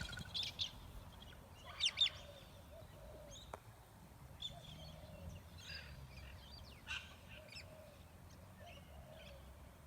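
Wild birds chirping and calling in short, scattered calls, with a louder call about two seconds in.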